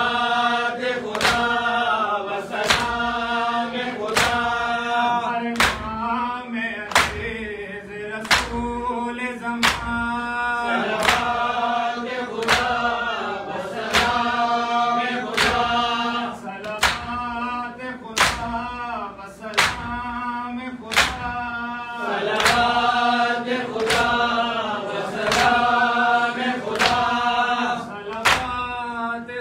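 Men's voices chanting a Farsi noha, with a crowd beating their chests with both hands (do-dasti matam) in a steady rhythm. The slaps land about once every 0.7 seconds.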